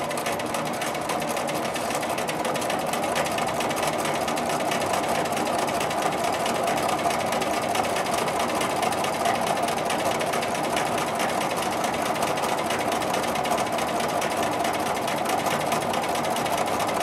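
Bernina domestic sewing machine running steadily, its needle stitching without a break during free-motion quilting.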